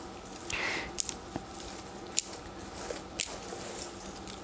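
Dry unretted flax stems pressed and bent between the fingers: a soft rustle and a few faint clicks. The unretted straw gives almost no sound under the thumb.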